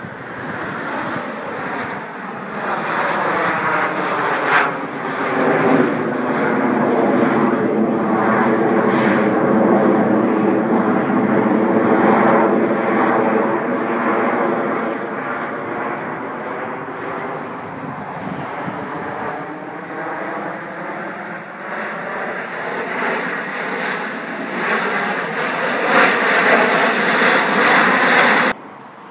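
A formation of CT-114 Tutor jets, each with a single turbojet, passing overhead with a steady jet roar that swells, eases off and swells again. It has a sweeping whoosh that seems to slide in pitch, and it cuts off suddenly near the end.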